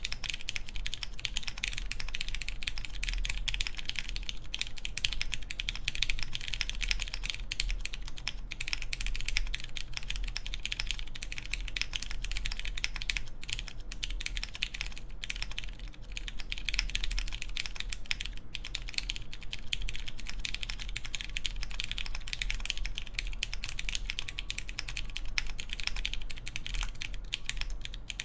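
Continuous fast typing on a mechanical keyboard with lubed Cherry MX Clear tactile switches on a full polycarbonate plate, with GMK keycaps: a dense stream of keystroke clicks and clacks.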